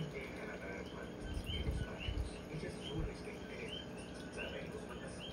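A background chorus of short, repeated chirping calls from small animals, several overlapping, a couple of chirps a second. A few soft low bumps come near the middle.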